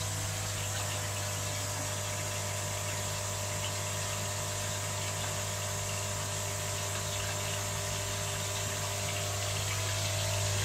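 Pump running steadily, refilling a koi pond upflow filter tube: a constant electrical hum with an even hiss of water, getting slightly louder near the end.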